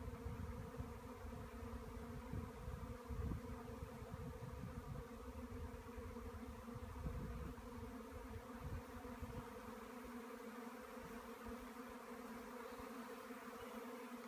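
A honeybee swarm humming steadily as it flies around and enters a log hive, a continuous drone. Some irregular low rumble underneath fades out after about ten seconds.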